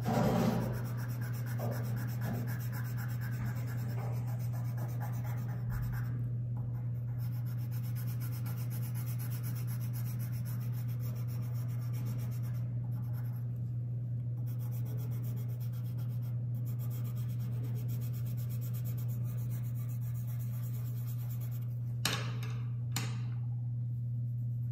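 Pencil scratching back and forth on smooth drawing paper as it shades, over a steady low hum; a couple of sharp knocks near the end.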